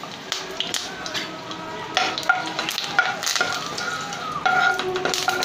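Curry leaves and asafoetida sizzling in hot oil in a non-stick kadhai, with a spatula stirring and scraping against the pan in quick clicks that get louder and busier from about two seconds in.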